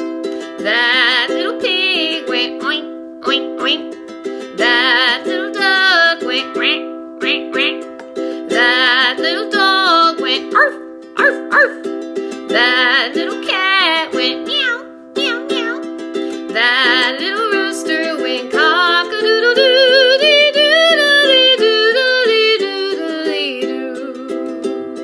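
Ukulele strumming steady chords under a woman's singing voice in a children's cumulative folk song, with the sung animal calls from the song: quack, arf, meow, and a long cock-a-doodle-doo with doodle-dee runs near the end.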